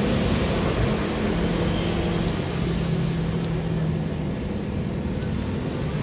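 Steady low droning background hum, even in level throughout.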